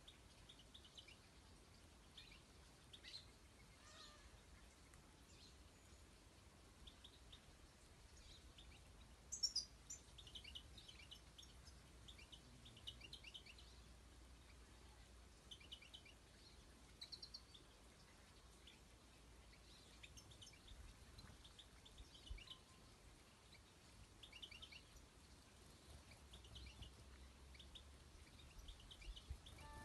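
Faint twittering of European goldfinches in short scattered chirps, with one louder, high, falling call about nine seconds in.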